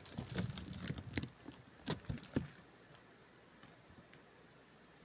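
Close-up handling noises: a quick run of light clicks, taps and rustles for about two and a half seconds, then only faint room tone.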